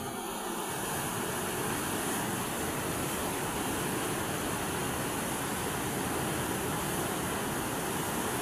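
Steady, even rushing noise with no pitch or rhythm. It fades in just before and stops abruptly.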